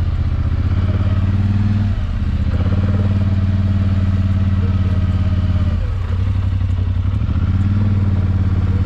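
Polaris Sportsman 850 ATV's twin-cylinder engine running steadily while riding. The engine note eases off briefly about two seconds in and again about six seconds in, then picks back up.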